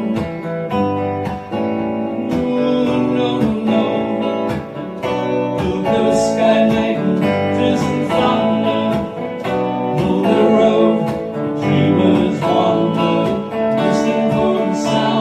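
Strummed chords on a Telecaster-style electric guitar, with a man singing.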